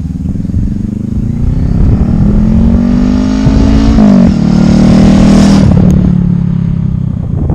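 Honda Rebel motorcycle engine accelerating. The revs climb for about four seconds, dip sharply with a gear change, then hold fairly steady and ease off near the end.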